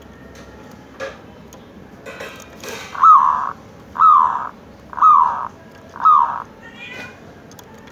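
Local Javanese zebra dove (perkutut) cooing: a few soft quick notes, then four loud coos about a second apart, each opening with a falling note, and a softer note trailing near the end.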